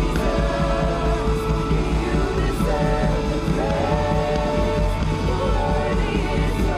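Live worship band: a woman singing held, gliding melody notes into a microphone over a drum kit with cymbals and a sustained bass.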